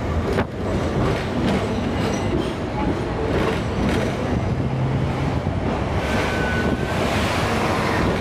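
Hong Kong double-decker tram running along the street, heard from on board: a steady rumble with repeated clicks and rattles from the wheels on the rails.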